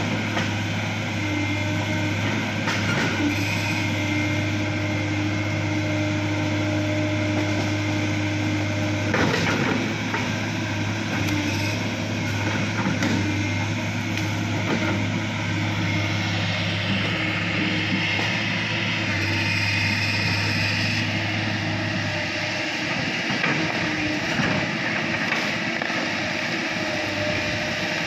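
Tracked excavator's diesel engine running steadily with a low drone while the machine works a muddy slope, with a few knocks along the way. The low drone drops away about three-quarters of the way through.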